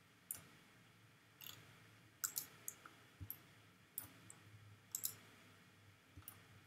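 Faint clicks of a computer mouse button: short, sharp clicks about once a second, several of them in quick pairs.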